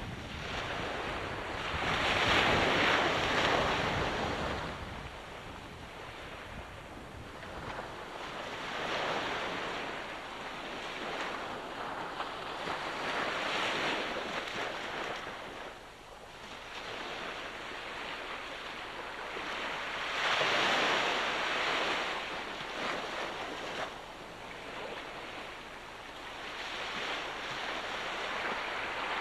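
Ocean waves washing onto the shore, the surf swelling and falling away every few seconds. Wind buffets the microphone with a low rumble for the first several seconds.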